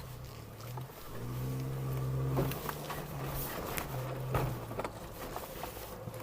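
The 2.4-litre engine of a Leopard four-wheel-drive SUV pulling under load on a muddy climb, its drone stepping up and down in pitch and growing louder about a second in. A few sharp knocks come through around the middle.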